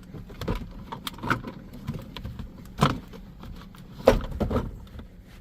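Scattered clicks and knocks from working a car's gear shift knob and its release tabs, the loudest about three and four seconds in.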